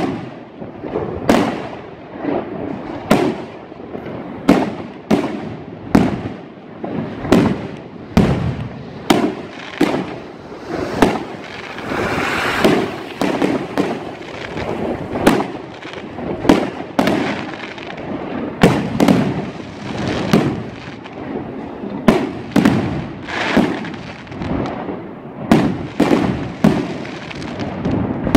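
Aerial fireworks going off in quick succession, a sharp bang about once a second as shells launch and burst, with a denser stretch of crackle about twelve seconds in.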